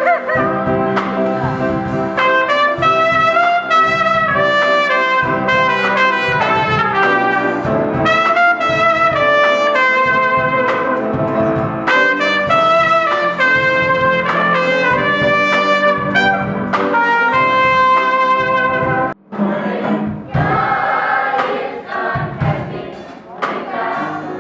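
Backing music with a loud trumpet-led brass melody over a steady beat. About nineteen seconds in, it cuts off abruptly and a quieter, different passage follows.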